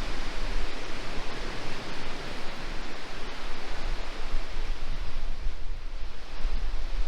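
Wind buffeting the microphone: a steady rush of noise with a gusty low rumble.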